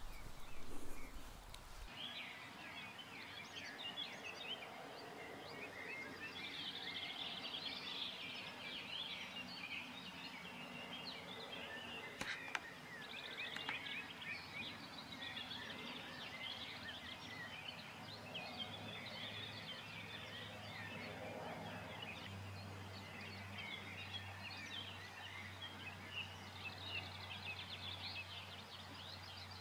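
Faint outdoor ambience of many birds singing and calling at once. A low steady hum comes in about two-thirds of the way through.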